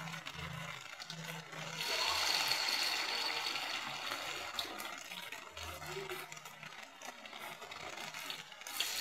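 Vegetable fritter batter deep-frying in a wok of hot oil, a steady sizzle that gets louder about two seconds in.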